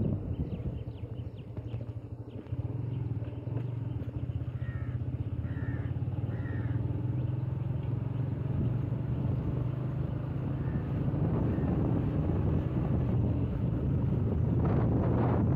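Motorcycle engine running steadily while riding, a low hum throughout. Three short chirps come about five to seven seconds in, and wind noise on the microphone rises near the end.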